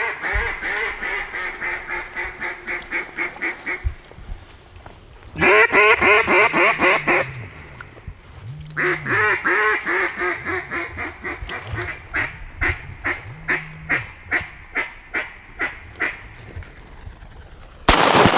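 Mallard duck call blown in hen-mallard calls: a run of quacks, a fast loud chatter like a feeding chuckle, then a long quacking series that fades away. A sudden loud burst of noise starts just before the end.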